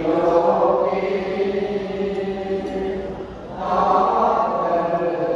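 Buddhist chanting in unison by many voices, in long held phrases. One phrase fades about three seconds in and the next begins half a second later.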